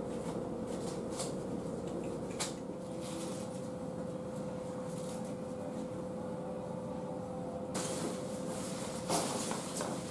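Steady background hum with a few light clicks; near the end a fabric barber cape rustles and flaps as it is shaken out and held up, with the loudest rustle about nine seconds in.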